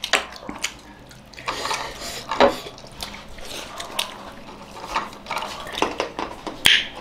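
Fingers swishing in a small glass bowl of liquid, with scattered light clicks of glass bowls and plates.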